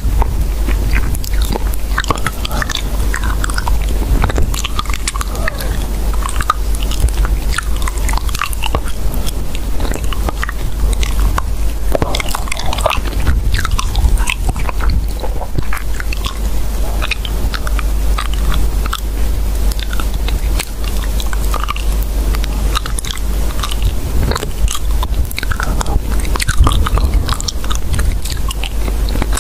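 Continuous close-up crunching and chewing sounds, made of dense irregular crackles and clicks over a steady low hum.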